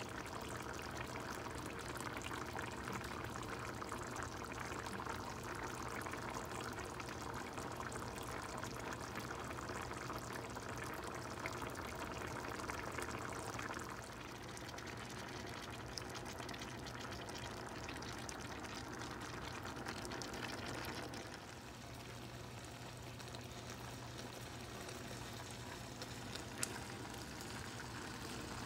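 Goulash of ground meat and tomato sauce simmering in a pan, a steady dense bubbling and crackling, over a steady low hum.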